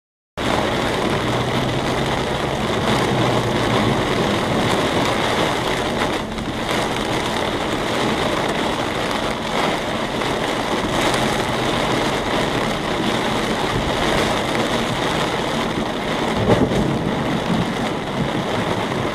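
Rain pouring on a moving car, heard from inside the cabin as a steady dense hiss mixed with tyre noise on a wet road. A brief louder rumble comes near the end.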